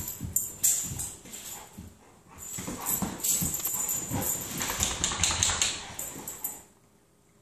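Two Dogo Argentinos play-fighting: dog vocal sounds mixed with scuffling and knocks of bodies and paws. It stops suddenly near the end.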